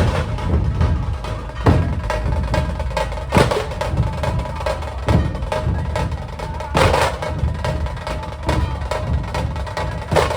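Maharashtrian dhol-tasha ensemble playing loud: fast continuous tasha drumming over heavy dhol beats, with a strong accented stroke about every second and a half.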